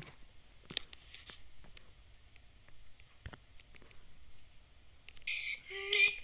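A few scattered light clicks and taps of a fingertip on a touchscreen. About five seconds in, music with a high singing voice starts to play.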